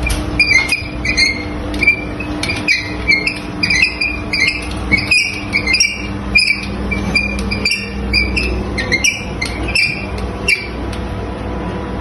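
Repeated short squeaks and clicks, about one or two a second, from a hospital bed being adjusted to sit the patient up. A steady low hum runs underneath.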